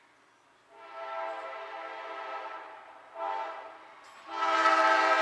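CSX freight locomotive's multi-chime air horn sounding a chord: a long blast, a short blast, then a louder long blast that is still going at the end.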